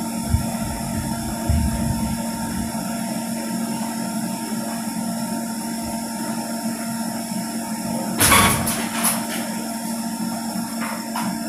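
Sharp AR-6031NV copier running steadily with a constant whir and hum while it stirs fresh developer during its automatic developer adjustment. A brief louder rushing noise comes about eight seconds in, and a few faint clicks near the end.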